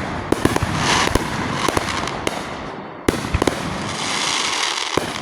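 Fireworks going off: a rapid run of sharp pops and crackles with hissing, and a louder bang about three seconds in followed by more quick pops.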